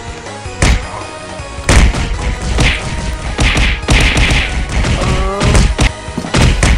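A run of thuds and whacks from a fight, some hits coming in quick clusters, over background music.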